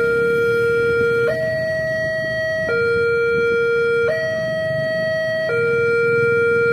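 Railway level-crossing alarm siren sounding its melodious two-tone call, switching back and forth between a lower and a higher tone about every one and a half seconds, the warning that a train is approaching the crossing.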